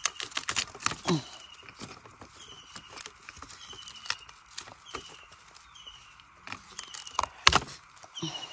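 Dry, fire-blackened bamboo stems clicking and cracking as a gloved hand pushes into the clump, with one loud sharp crack near the end. A bird repeats a short falling trill about once a second in the background.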